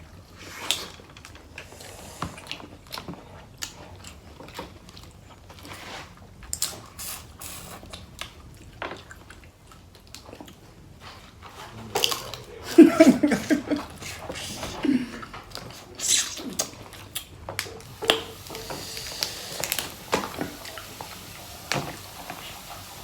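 Close-up eating sounds: chewing and mouth smacking, with scattered sharp clicks and cracks. A brief murmur of voice comes about halfway through.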